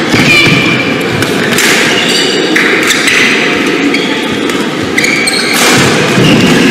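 Badminton rally: rackets striking the shuttlecock, with short high squeaks of court shoes on the floor between the hits.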